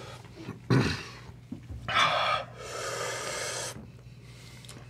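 A man breathing hard against the chili burn of an extremely hot sandwich: a sharp breath about two seconds in runs straight into a long breath blown out through the mouth, with a brief short sound about a second in.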